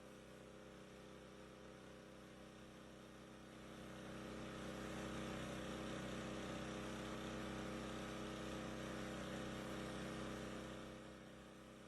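Faint steady mechanical hum that grows louder from about four seconds in and falls back near the end.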